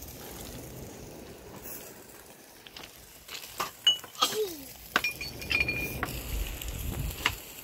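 Tableware clinking: cutlery knocking against plates and glassware. A run of sharp clinks starts a little before halfway, and one of them rings on for about a second.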